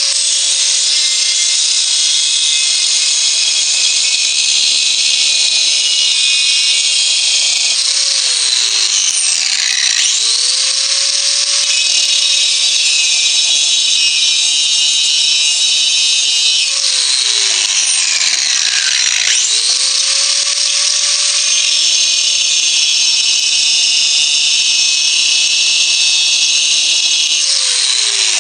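DeWalt angle grinder grinding a spot-welded steel tab down to the stainless of a pot lid, a steady motor whine over a harsh high grinding hiss. The grinder is let off and winds down three times, with a falling whine, about 8 s in, about 17 s in and near the end, and is started up again twice, its whine climbing back.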